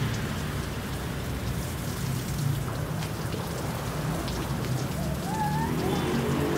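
Water from an overhead rain shower head pouring steadily, splashing onto a person standing under it and onto the stone floor.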